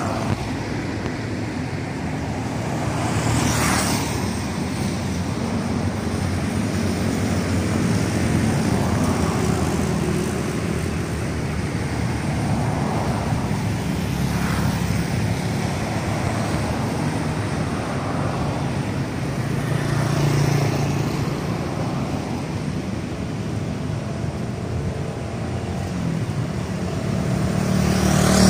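Road traffic noise heard from a moving vehicle: a steady rumble and tyre hiss, with a few vehicles swelling past now and then.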